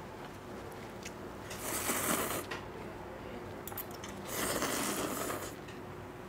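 A person slurping noodle soup: two loud slurps, one about two seconds in and another about four and a half seconds in, the second as ramen noodles are drawn in.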